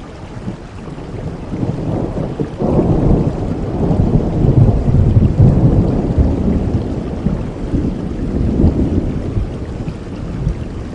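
Thunder rolling over steady rain: a deep rumble comes in sharply about two and a half seconds in, is loudest around the middle, and slowly dies away toward the end.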